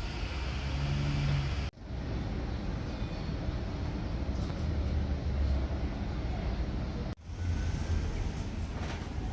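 Steady low rumble of vehicle noise, broken by two brief sudden drop-outs.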